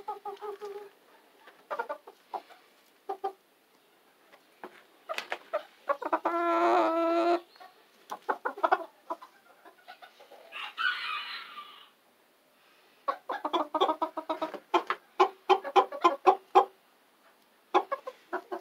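Bantam chickens clucking in short calls, with a rooster crowing once, loudly, about six seconds in, and a fast run of clucks toward the end.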